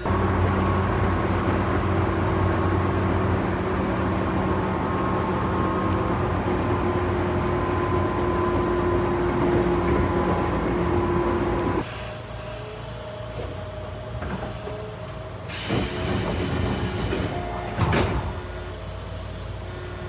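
Tobu 9000 series electric train's traction motors and chopper control under power: a steady whine over a hum, its tones rising slowly, then cutting off sharply about twelve seconds in and leaving quieter running noise. Later a short burst of air hiss and a sharp thump.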